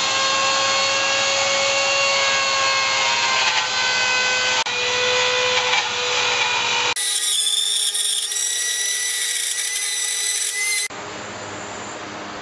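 Handheld high-speed rotary tool cutting into a wooden tabletop, with a loud, steady high-pitched whine. The sound shifts abruptly about four and a half and seven seconds in, as one take follows another. It drops to a quieter steady hum for the last second or so.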